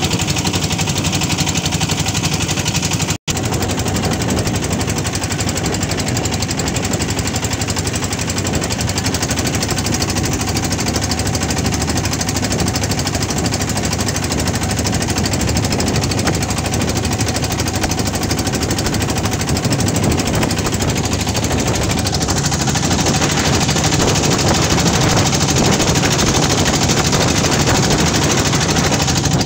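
The diesel engine of a wooden river boat running steadily under way, with a rapid, even knocking beat. The sound cuts out for an instant about three seconds in.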